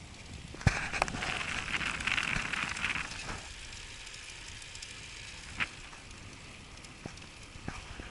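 Touring bicycle rolling on asphalt, with a burst of dense crackling and rattling about two seconds long starting just under a second in, opened by a sharp click, and another single click later.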